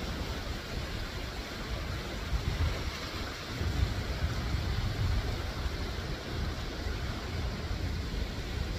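Sea waves washing in among the rocks of the shore, with wind rumbling unevenly on the microphone.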